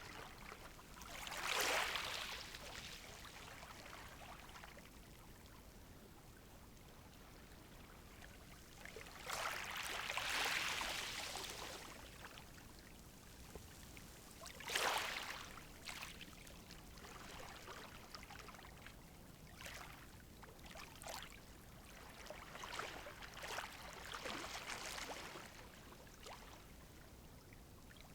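Small, gentle sea waves washing onto a shore, each wave a soft rush of surf that swells and fades. The largest washes come about a second and a half in, around ten seconds and at fifteen seconds, with smaller ones between and after.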